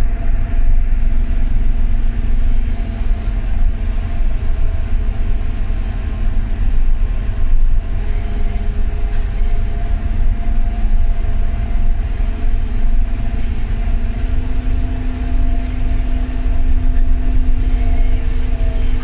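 Aircraft pushback tug's engine running under load as it moves an Airbus A320 by a towbar on its nose gear: a steady heavy rumble with a humming drone whose pitch steps up slightly about three-quarters of the way through.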